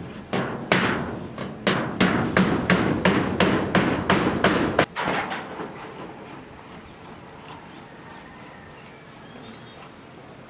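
Hammer blows from roof repair work: a quick run of about fifteen strikes, about three a second, which stops about five seconds in.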